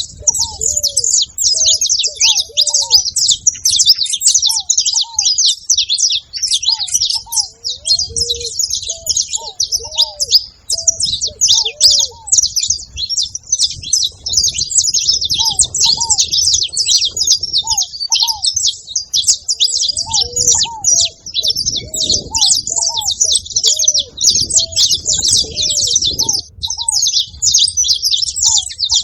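Several saffron finches chirping and singing together in a dense, continuous chorus of rapid high notes. Short, lower arched notes repeat underneath throughout.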